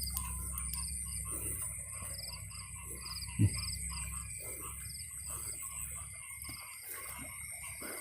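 Frogs and insects calling: short pulsed trills repeating several times a second over a steady high insect drone, with scattered lower calls. A single dull thump a little past three seconds in.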